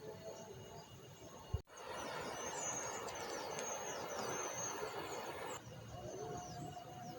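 Outdoor ambience: many short, high, falling bird chirps repeating throughout, over a steady rushing noise that starts abruptly about a second and a half in and eases off near the end.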